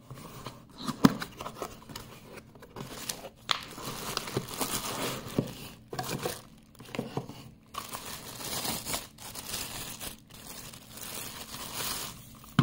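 Clear plastic bag crinkling and rustling as a small bilge pump is unwrapped from it, with many sharp crackles and light knocks along the way.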